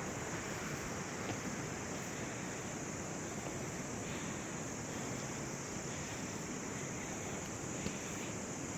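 Steady rushing of a mountain river flowing over rocks.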